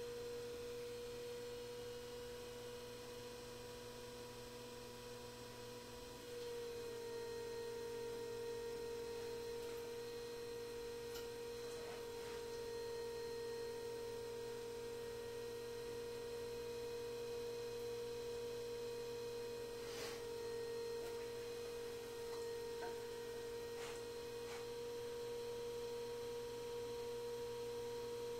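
Electric potter's wheel running with a steady, even-pitched motor hum as clay is opened on it. The hum grows a little louder about six seconds in, with a few faint clicks later on.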